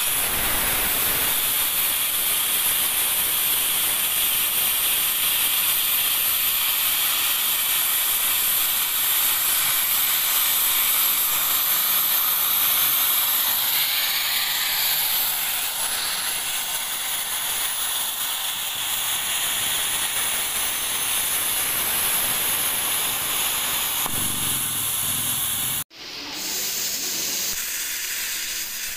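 Plasma cutting torch on a profile cutting machine, a loud steady hiss of air and arc. Near the end the sound breaks off for an instant and then the hiss resumes.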